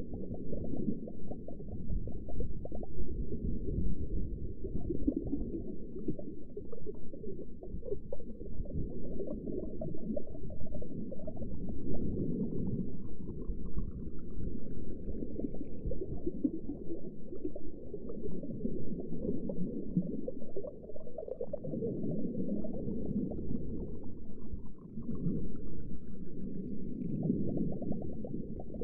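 Underwater ambience: a muffled, churning low rumble with gurgling and bubbling that swells and eases. Two faint rising sweeps sound over it, one in the middle and one near the end.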